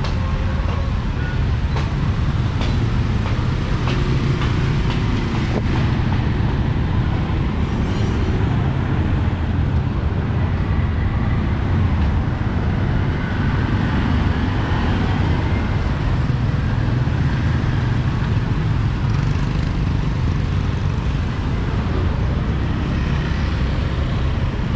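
Steady street traffic noise: motor vehicle engines running, with a strong low rumble.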